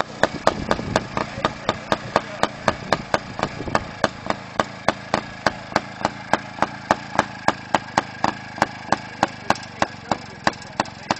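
Villiers 197 cc single-cylinder two-stroke motorcycle engine running at idle, giving sharp exhaust pops about three or four a second, a little quicker in the first second.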